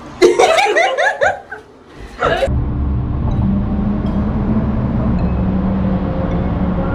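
A woman laughing in short bursts for about a second and a half, with one more brief laugh, then a steady low rumble of road and engine noise heard inside a moving car's cabin.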